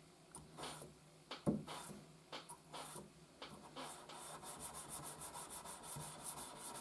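Flat hand file scraping across a steel knife blade as the bevel is filed by hand: a few separate strokes, the loudest about a second and a half in, then a quick run of short, even strokes from about four seconds in.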